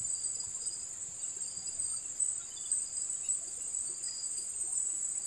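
Steady, high-pitched chorus of insects, a continuous shrill drone with no breaks.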